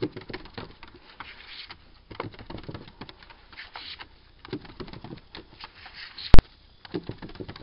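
A dachshund's claws scrabbling and pattering as it tries to run up a slide, a run of irregular light taps, with one sharp loud knock a little over six seconds in.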